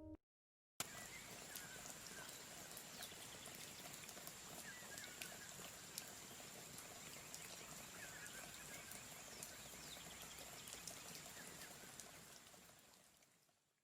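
Faint rain pattering, with scattered drips and a few short chirps, fading out near the end.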